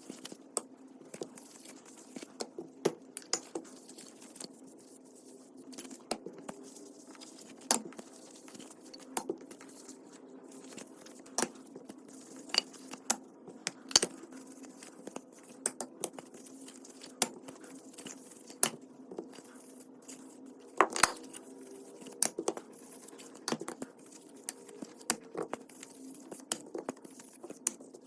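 Irregular sharp taps, clicks and knocks of hand work in a woodworking workshop, a few of them louder than the rest, over a low steady hum.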